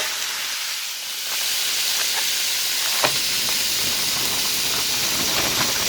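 Marinated T-bone steaks sizzling steadily on a hot grill just after being laid on.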